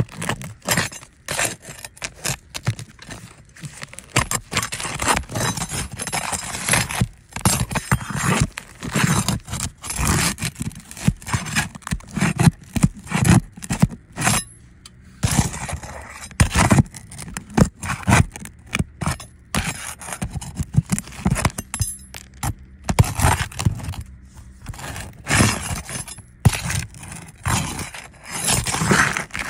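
Asphalt roof shingles being lifted and handled for a repair test: repeated irregular scraping and crackling of the gritty shingle tabs, with sharp knocks mixed in.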